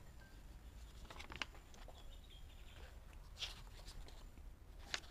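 Faint rustling and light ticks of paper being handled, as a sheet is drawn out of an envelope and leafed through, with a sharper tick near the end.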